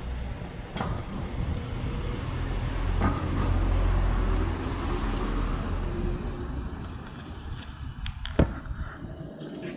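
Street ambience with a motor vehicle's low rumble swelling and fading around the middle as it passes. A sharp knock stands out near the end.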